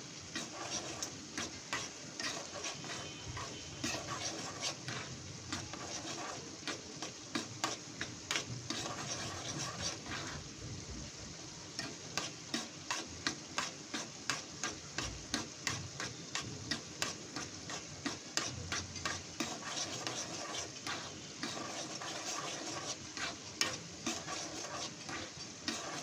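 Food sizzling in a hot pan while a spatula stirs and scrapes it, with repeated short scraping strokes over a steady sizzle.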